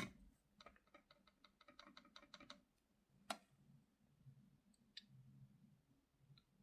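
Light handling noise while eyeshadow is applied: a sharp click, then a quick run of light taps, about seven a second, then another sharp click; otherwise near silence.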